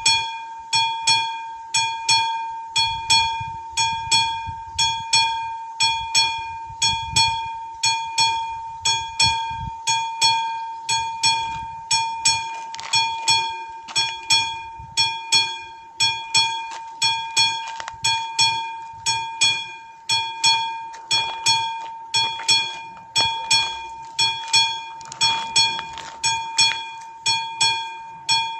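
Mechanical bell of a Czech AŽD 71 level-crossing warning signal ringing steadily, about two strikes a second, each strike ringing out. The crossing is active, warning that a train is approaching.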